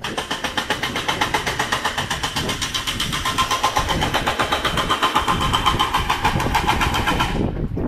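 An engine running close by with a fast, even throb of about seven pulses a second. It starts abruptly and cuts off near the end.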